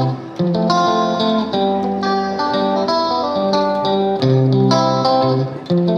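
Background music: a guitar piece of plucked notes and chords.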